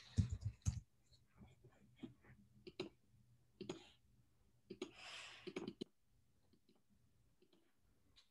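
Irregular clicks and knocks of someone working at a desk, with a short rustle about five seconds in, picked up faintly by a video-call microphone; the first second holds the loudest knocks.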